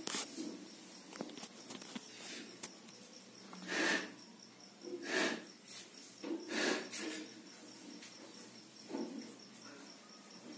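A cricket chirping steadily and high, about four chirps a second. Several brief rustling swishes come through on top.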